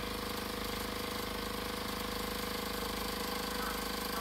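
Small household spin dryer (jjalsuni) running with a steady motor hum, spinning the liquid out of boiled, mashed sweet potatoes.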